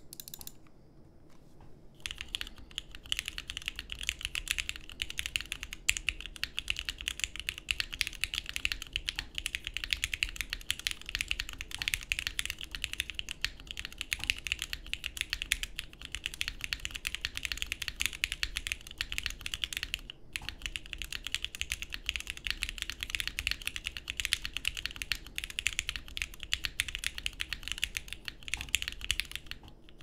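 Steady, fast typing on a Wilba.tech Salvation leaf-spring-mounted mechanical keyboard with SP Star Nana linear switches, an FR4 plate and CRP keycaps, the keystrokes running together in a dense stream. The typing starts about two seconds in and breaks off briefly about two-thirds of the way through.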